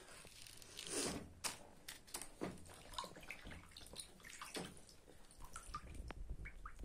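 Faint kitchen handling sounds of peeling an artichoke: scattered knife and plastic-bag clicks and rustles, with water sloshing as a hand dips into a bowl of lemon water.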